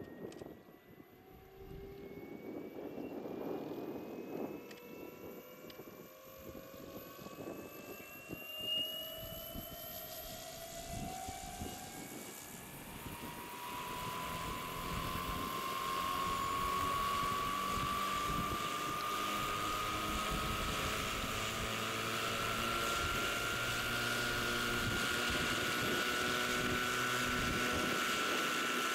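Electric drive and rotors of a giant scale model Hughes 500 helicopter (2.65 m rotor) spooling up on the ground. A whine rises in pitch and grows louder for about fifteen seconds, then levels off into a steady whine and rotor hum at flight speed.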